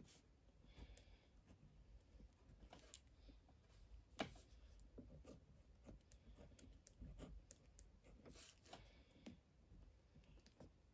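Faint scratching of a pen writing words on a paper notebook, with scattered soft ticks and one sharper click about four seconds in.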